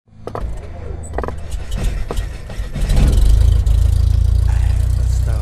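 Sound effects for an animated logo intro: a few sharp hits in the first two seconds, then a deep steady rumble that swells about three seconds in and holds.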